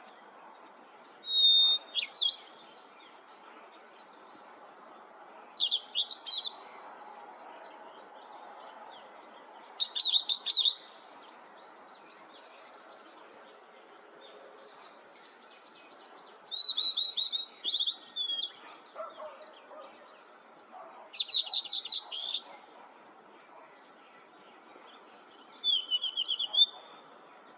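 Blue-and-white flycatcher singing: six short phrases of clear whistles and fast trills, one every four to five seconds, over a faint steady background hiss.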